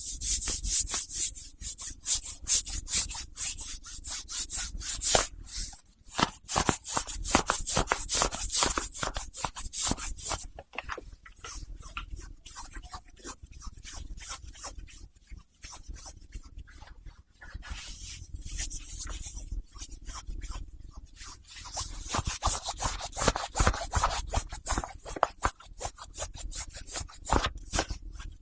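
White cotton socks rubbed and folded close to the microphone: rapid, soft, scratchy rubbing strokes, stronger in the first ten seconds and again near the end, quieter in between.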